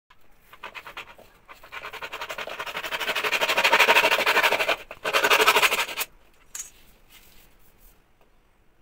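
Hacksaw cutting through a white PVC wiring (conduit) pipe with rapid back-and-forth strokes that grow louder, pause briefly about five seconds in, and stop about six seconds in.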